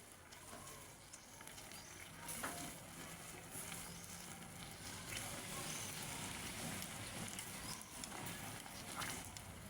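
Ginger juice, honey and salt mixture sizzling faintly as it is heated to a bubble in a large spoon over a stove flame.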